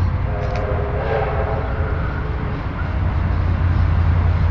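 Victorian Railways R class steam locomotive R761's whistle sounding once for about two seconds, a chord of several steady tones, over the steady low rumble of the approaching train, which grows a little louder near the end.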